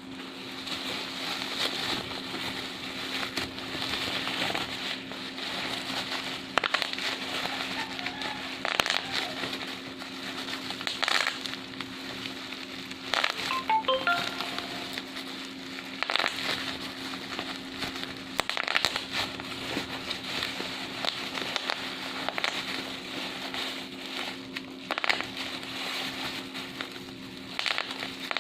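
Plastic bubble wrap being handled, crumpled and popped: continual crinkling crackle with frequent sharp pops, and a steady low hum underneath.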